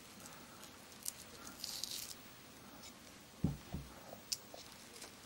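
Quiet handling of an old paper shotgun cartridge being cut and picked apart with a knife: scattered small clicks and a brief scraping rustle about two seconds in. A little past three seconds come two short low hums close together, the loudest sounds here.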